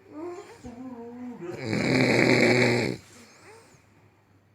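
A sleeping woman snoring: one long, loud snore begins about a second and a half in, with quieter throaty sounds before it.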